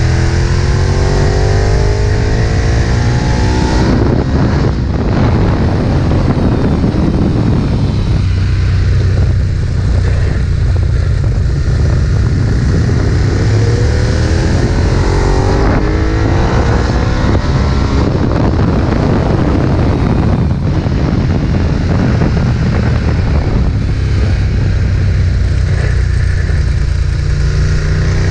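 Ducati 1098's L-twin engine pulling hard at track speed. Its pitch climbs in several long sweeps as it revs out through the gears, between stretches of steadier running.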